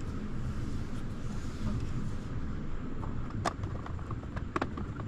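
Steady low rumble, with two sharp light clicks about three and a half and four and a half seconds in as a red plastic bilge pump mount is pressed onto the floor of a plastic cooler.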